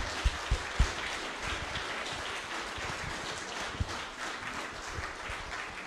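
Audience applauding steadily, with a few low thumps in the first second.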